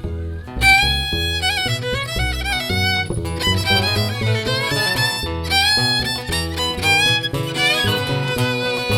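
Live bluegrass instrumental break: a fiddle takes a solo, entering about a second in with sliding melodic runs over the band's bass and rhythm backing.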